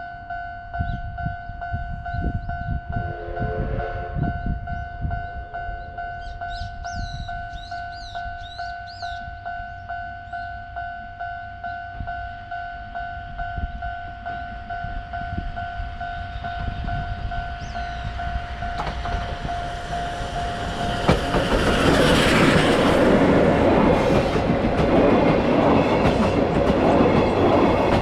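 Japanese level-crossing warning bell dinging steadily, with a short steam whistle blast from the C58 steam locomotive about three seconds in. From about twenty seconds in, the locomotive and its coaches pass loudly over the crossing, the rush of the train swamping the bell.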